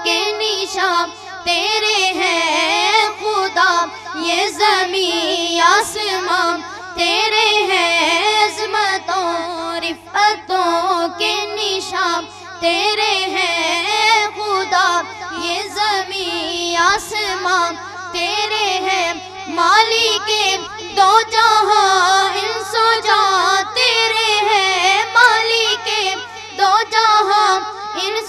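Two boys singing a naat, an Urdu devotional song, into microphones through a sound system, with a steady low hum underneath.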